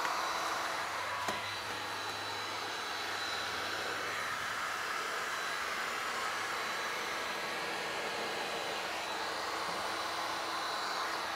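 Heat gun running steadily, blowing hot air with an even rushing noise.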